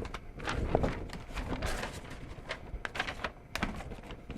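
Irregular knocks, clicks and light clatter as washing machine control boards are handled and swapped, one set down and the next picked up.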